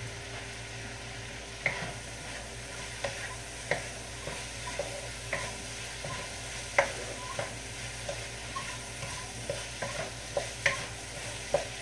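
Stir fry sizzling steadily in butter in a wok, with a utensil clacking against the wok at irregular intervals, roughly once a second, as it is stirred.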